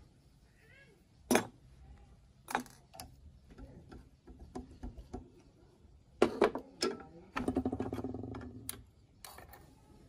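Steel parts clinking against each other as a pin and a flat rusty steel part are worked in a bench vise: a few sharp clinks, then a quick metallic rattle lasting just over a second near the middle, and one more click near the end.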